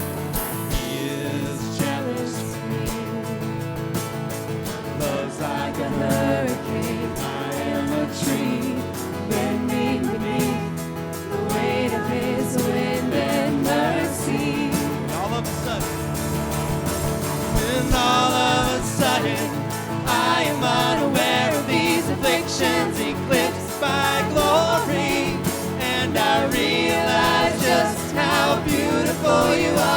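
A live worship band playing a song, with singing that grows fuller and louder about eighteen seconds in.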